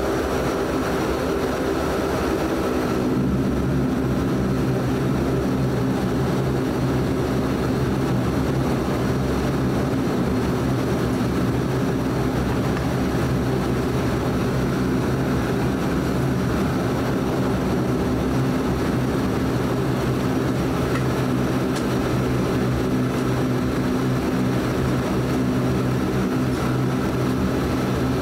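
Steady drone of a Dash 8 Q400's two Pratt & Whitney PW150A turboprops and propellers, heard from inside the cabin while taxiing, with a hum of several steady low tones. The tones shift in pitch and strengthen about three seconds in.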